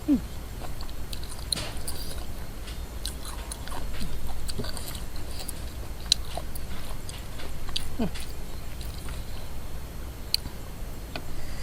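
Close-up eating sounds: a person chewing and biting, with many short crisp clicks and crunches and a few brief mouth sounds.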